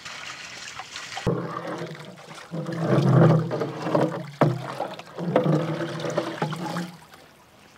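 Water pouring into a large metal cooking pot for about a second. Then a long-handled ladle stirs and sloshes the water around whole chickens in the pot, in two spells.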